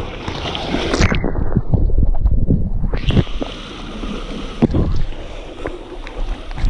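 Whitewater rushing and splashing around a kayak, heard close at water level, with a few knocks. About a second in, the sound turns muffled for about two seconds as water washes over the camera, then clears.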